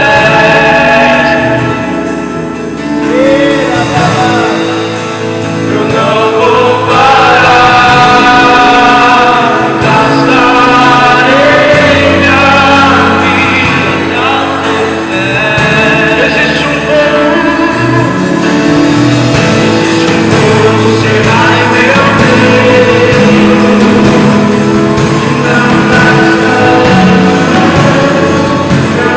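Live gospel worship band playing a praise song, with voices singing over sustained keyboard chords; loud and continuous.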